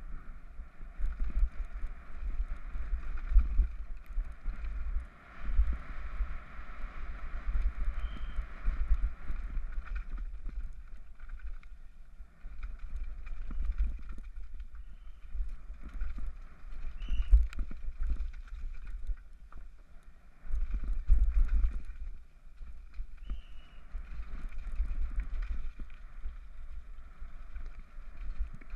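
A Scott Gambler downhill mountain bike clattering and rattling at speed over a rocky dirt trail, heard through a helmet-mounted GoPro's housing, with deep wind buffeting on the microphone and frequent sharp knocks from rocks and landings.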